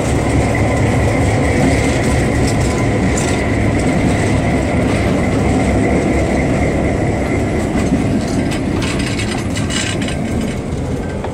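EMD FP7 diesel locomotive running close by: a loud, steady low engine rumble with a faint high whine over it. There are a few rattling clicks near the end.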